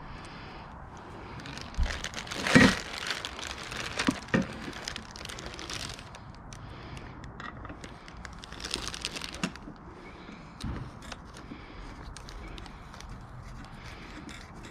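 Clear plastic wrapping crinkling as a plastic-covered backrest pad is handled and pressed into position. It comes in bursts, loudest about two and a half seconds in, with a few sharp knocks.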